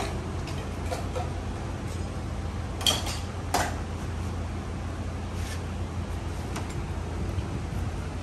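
Stainless-steel mugs and pots clinking and knocking against each other and the steel table as drinks are made, with a few scattered clinks and two louder knocks about three seconds in. A steady low hum runs underneath.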